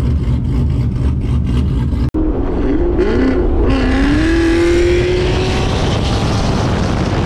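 Car engine running loud with a rapid low exhaust rumble, then, after a cut about two seconds in, accelerating hard, its note wavering and then rising steadily.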